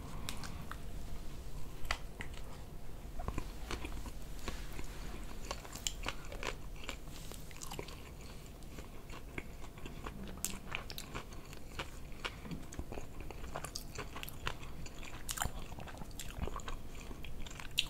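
A person chewing and crunching a bite of KFC fried chicken sandwich, its crispy fried coating crackling in short, irregular crunches.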